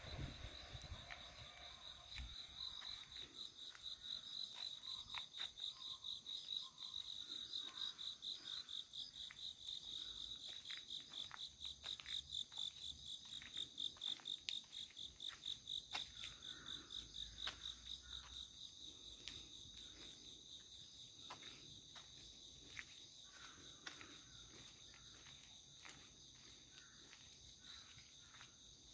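Insects singing in a high, rapidly pulsing chorus that swells through the middle and fades toward the end, with a few faint ticks scattered through it.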